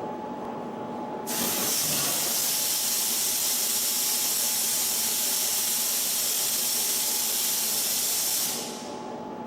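CNC flat-wire ring forming machine running with a steady hum, while a loud steady hiss comes on about a second in and stops near the end.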